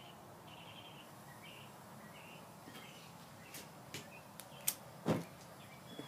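Homemade propane foundry burner being lit: a faint steady hiss with a few sharp clicks, then one louder pop about five seconds in as the burner catches. Birds chirp faintly in the background.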